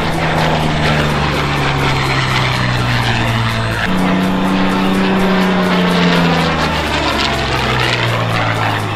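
A propeller aircraft's piston engine flying past, its sound sweeping as it passes, under background music with sustained low chords that change about halfway through.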